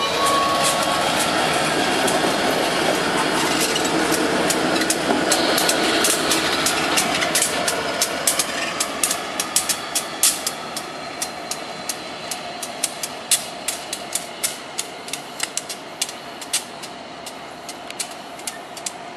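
Two CSX EMD diesel locomotives running light past and away, their engine rumble fading steadily. A run of sharp clicks from the wheels on the rails stands out more and more as they recede.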